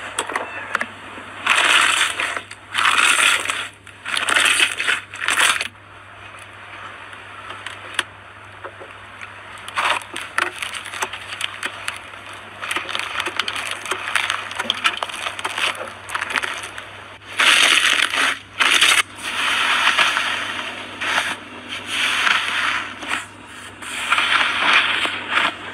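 Slime being squeezed and pressed by hand, in repeated bursts of crackly clicking every second or two.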